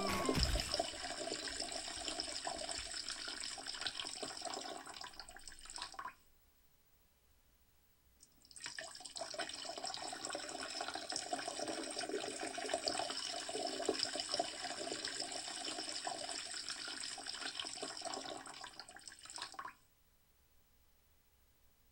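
Water running in a steady splashing stream, in two stretches that cut off abruptly, with a gap of about two and a half seconds between them.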